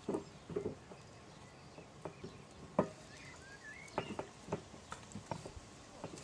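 Light taps and clicks of zucchini slices being set down one at a time on a metal wire grill basket, a few scattered taps several seconds apart.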